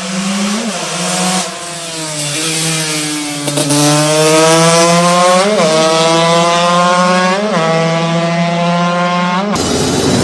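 Two-stroke motorcycle engine accelerating hard. Its pitch climbs steadily and breaks briefly every couple of seconds as it is shifted up through the gears. It cuts off abruptly near the end.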